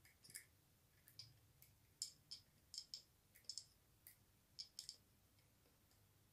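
Faint, scattered light clicks, about ten of them and thickest in the middle seconds, as hands fit a Creality Ender 3 Pro's toothed drive belt over its pulley and into the printhead carriage.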